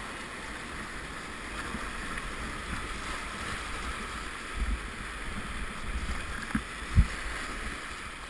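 Whitewater river rushing steadily around a kayak. A few dull low thumps come in the second half, the strongest about seven seconds in.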